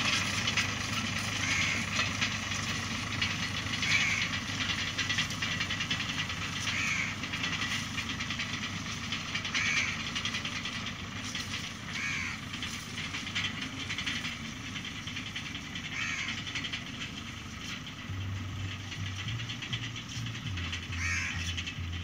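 Tractor engine running steadily while pulling a straw rake, growing slightly fainter as it moves away. Short high chirps recur every two to three seconds.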